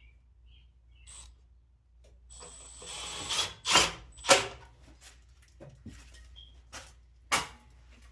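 Work noises while fitting a water heater's exhaust vent: about a second of scraping with a thin high whine, then sharp knocks or clanks, three of them loud.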